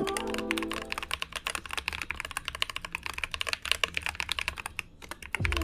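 Fast typing on a TM680 65% custom mechanical keyboard with lubed Akko CS Ocean Blue tactile switches, foam-filled and tape-modded under the PCB for a poppy sound. It is a quick, dense run of key clicks that stops shortly before the end.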